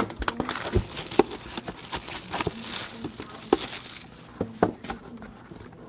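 A cardboard trading-card box being handled and opened on a tabletop: irregular light taps and knocks, with papery rustling and scraping that is busiest in the first three seconds.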